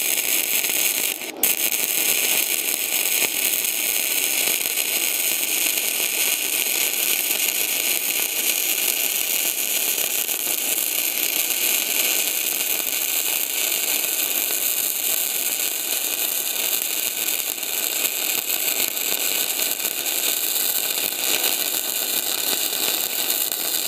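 Gasless MIG welding with Deka self-shielded flux-cored wire: a steady arc crackle on straight polarity (electrode negative), run as a vertical-down weld. The arc breaks briefly about a second in, then runs on without a stop.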